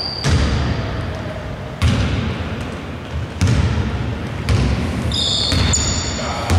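A basketball being dribbled up an indoor court: about five bounces, each a second or more apart, echoing in the large hall. Brief high squeaks come near the end.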